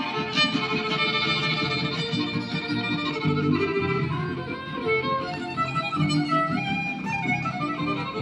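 Live huapango huasteco played by a trio huasteco: the violin leads an instrumental passage between sung verses over the steady strummed rhythm of the jarana and huapanguera.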